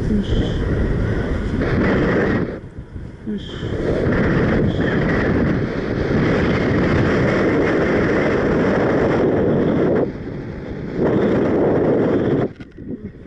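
Strong wind buffeting the microphone in gusts during a paraglider flight, dropping away briefly about three seconds in and again near the end.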